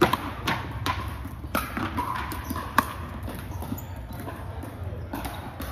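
Pickleball paddles striking the hard plastic ball during a rally: a series of sharp, irregular pops. The loudest comes at the very start and another a little under three seconds in.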